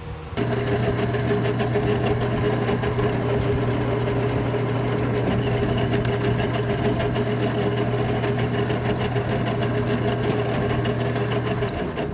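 Small Jet metal lathe running with its threading change gears in mesh: a steady motor hum under fast, constant gear clatter. It starts about half a second in and shuts off just before the end.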